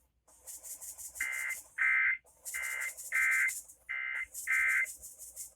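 Emergency Alert System SAME header: three bursts of shrill, buzzy digital data tones, each about a second long, sending the coded start of an EAS monthly test.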